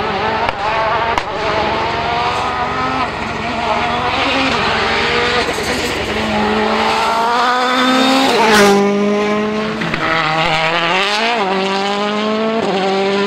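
World Rally Car engine accelerating hard through the gears, its pitch climbing and dropping back with each upshift. The car passes close by about eight and a half seconds in, the loudest moment, with a sharp fall in pitch, then revs up again twice as it pulls away.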